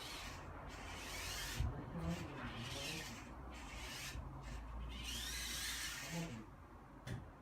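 Parrot minidrone's small propellers whirring in several surges with short drops between them, the pitch rising and falling as the motors speed up and slow down.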